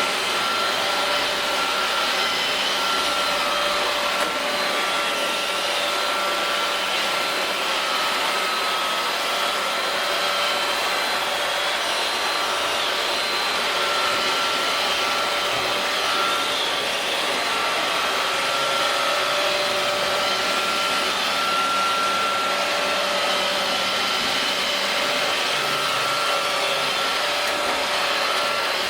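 iRobot Roomba robot vacuums running steadily, a constant whir with a faint whine in it that swells and fades a little as they move about the mat.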